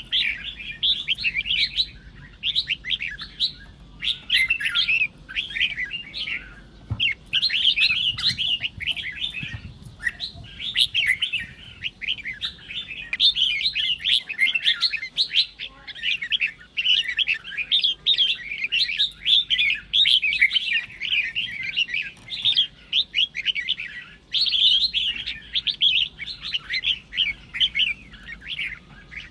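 Red-whiskered bulbul singing in competition: quick chirping, warbling phrases follow one another almost without a break, with only a few short pauses.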